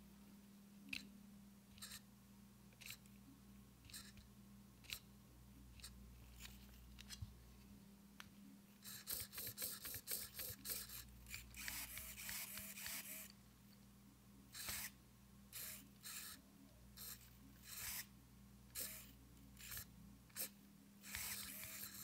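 Small hobby RC servos whirring in short bursts as they follow the joystick's movements. The bursts are faint and spaced about a second apart at first, come as a quick flurry about nine seconds in, then return as separate whirs every second or two, over a faint steady hum.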